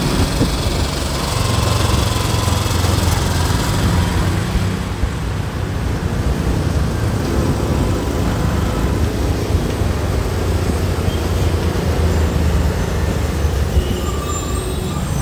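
Road traffic: the steady drone of many vehicles' engines and tyres, heaviest in the low rumble, with no single vehicle standing out.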